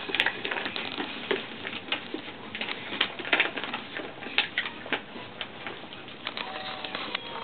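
A litter of puppies scrambling about, their claws pattering and scratching in a stream of irregular clicks and ticks, with louder clusters around three and four seconds in.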